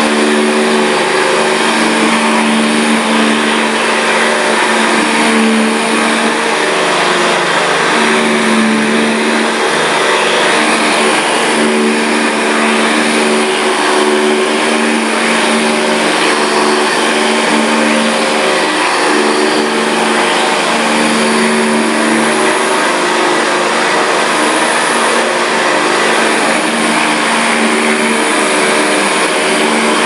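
1970 Hoover Convertible upright vacuum cleaner running, its motor giving a loud, steady whine over a rush of air as it is pushed back and forth over carpet. The whine swells and fades every couple of seconds with the strokes.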